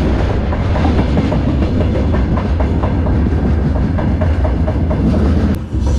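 A freight train's wagons rolling along the track, heard from on board the train: a loud, steady rumble with the clickety-clack of the wheels over the rails.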